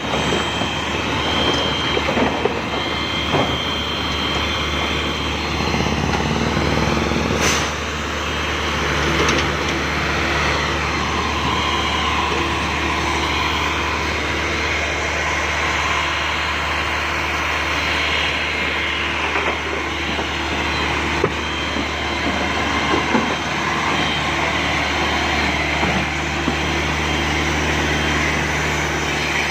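Rock drilling machine running: a steady engine drone under loud mechanical drilling noise, with one sharp knock about seven and a half seconds in.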